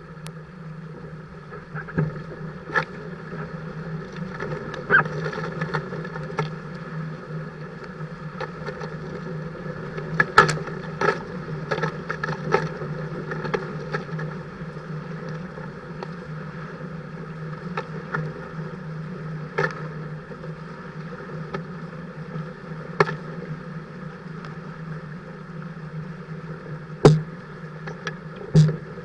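Dart 15 Sting catamaran under sail: a steady rush of wind and water, with irregular sharp knocks and slaps scattered through it.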